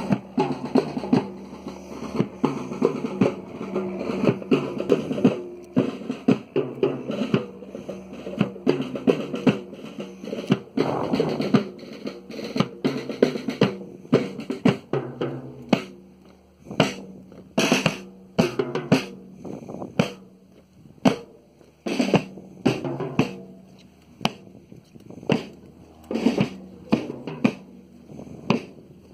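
Cadet marching band playing a march on the move: brass and saxophones with sousaphone over snare and bass drum. About halfway through, the tune thins out and the drum beats stand out, with shorter brass phrases between them.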